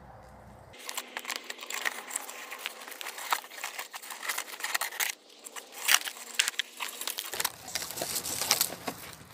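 Dense rustling and crackling of leaves and twigs being brushed and pushed about, with many small sharp snaps, starting about a second in.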